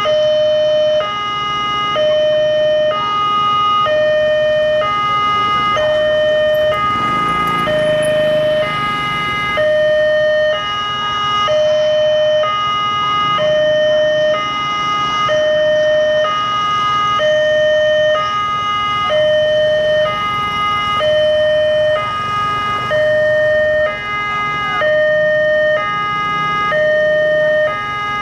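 Railway level-crossing warning alarm sounding: two electronic tones alternating steadily, each about half a second, warning of an approaching train while the crossing barrier is down.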